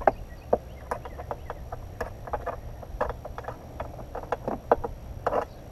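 Irregular light clicks and taps of hardware being handled against hard plastic as a motorcycle luggage mounting bracket and its bolt are worked into place, over a low steady rumble.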